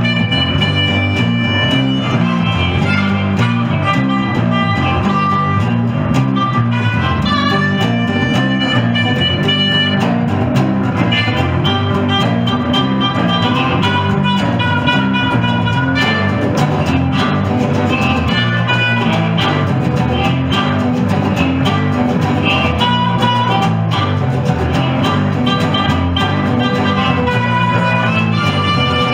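Small blues band playing an instrumental passage: a resonator guitar strumming over a steady bass line while a harmonica plays long held notes on top.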